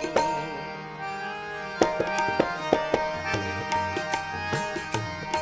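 Instrumental kirtan passage: harmonium holding steady reed chords while a tabla plays, its strokes coming in sharply about two seconds in.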